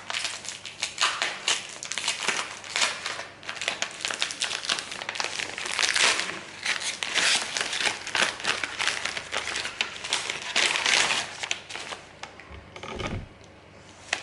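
Packaging crinkling and rustling as a bag is unwrapped by hand, in irregular bursts that die down near the end.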